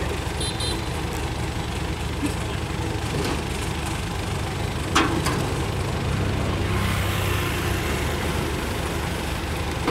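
A diesel engine idling steadily, with a single sharp knock about five seconds in.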